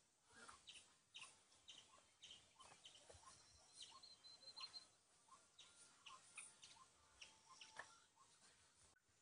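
Faint outdoor bird chorus: many short, high chirps and calls from several small birds, with a brief trill about four seconds in. It cuts off suddenly just before the end.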